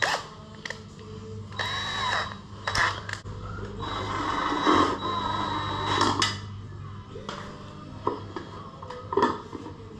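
Hand tools working on the motorcycle's air cleaner bolts: scattered metallic clicks and knocks, with a longer stretch of scraping and rattling in the middle, over a low steady hum.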